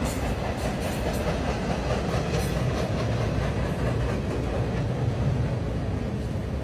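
A train going by, a steady heavy rumble with a few clicks from the wheels near the start.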